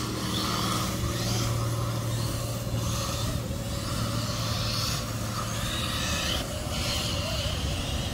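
Arrma Felony 6S RC car's brushless electric motor running as it drives, its faint whine wavering up and down, with surges of tyre and gear noise coming and going over a steady low hum.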